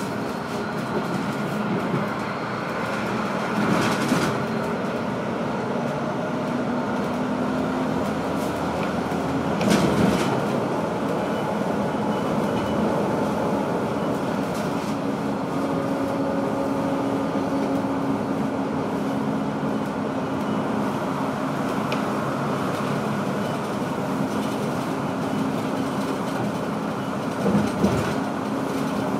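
Inside a city bus at speed: steady engine and road noise with a constant hum, and a few brief knocks or rattles, the loudest about ten seconds in.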